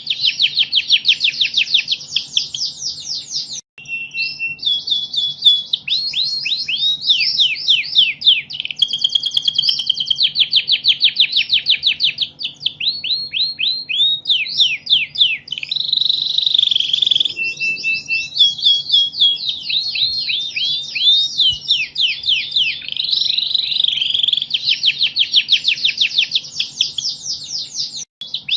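Domestic canary singing a long, continuous song of fast trills and rapidly repeated notes, changing from one phrase to the next every second or two, with brief pauses about four seconds in and near the end.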